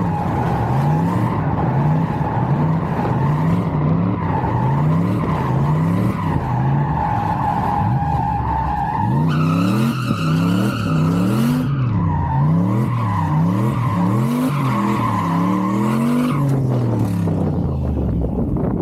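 Turbocharged LS V8 drift truck drifting: the engine revs rise and fall in quick repeated swings while the tires squeal, and the squeal turns louder and higher for a couple of seconds near the middle.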